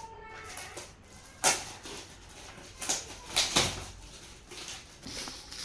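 Gift wrapping and packaging being handled and torn open: a few separate sharp rustles and crackles.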